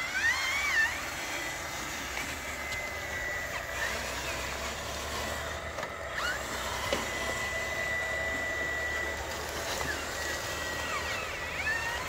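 Radio-controlled toy dump truck's electric motor and gears whining as the truck drives, with a steady high whine through the middle. A few faint high gliding sounds come near the start and end.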